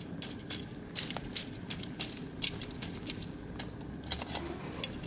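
Oak and beech logs burning in a barbecue grill, crackling with irregular sharp pops, several a second, a few louder than the rest.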